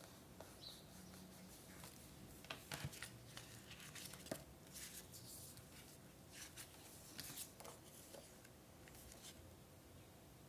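Faint paper-crafting sounds: scattered light taps and clicks with a few short rustles of paper being handled.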